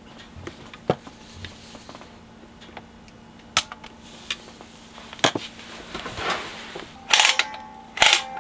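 Small metal parts of a BSR UA15SS record changer clicking and tapping as its idler wheel assembly is handled and fitted. About seven seconds in come a few louder, sharp metallic clacks, each with a brief ring.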